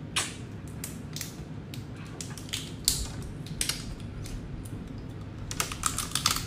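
Langoustine shell cracking and crackling as it is peeled apart by hand: irregular sharp clicks and snaps, with a quick cluster near the end. The shell is very hard.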